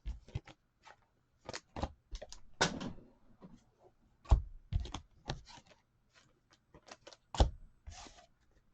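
Handling noise of trading cards and cardboard card boxes on a table: irregular clicks and taps, with a couple of brief rustles.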